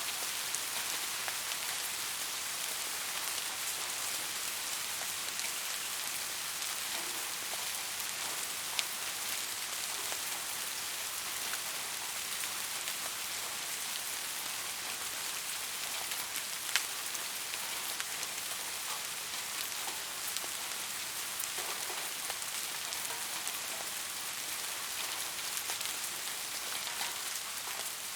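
Steady rain falling, an even hiss with scattered sharp drop ticks. The clearest ticks come about nine and seventeen seconds in.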